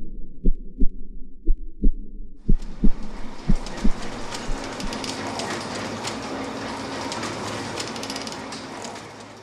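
Muffled heartbeat thumps, a double beat about once a second. After about two and a half seconds a loud, harsh full-range soundtrack comes in over them and fades away near the end.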